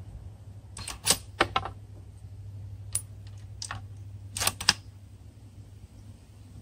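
Bolt of a Savage bolt-action rifle being worked after a shot: sharp metallic clicks in small groups over about four seconds as the bolt is lifted, drawn back to eject the spent .243 Win case and run forward to chamber the next round.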